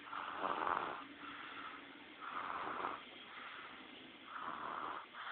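A sleeping baby snoring loudly, three snoring breaths about two seconds apart.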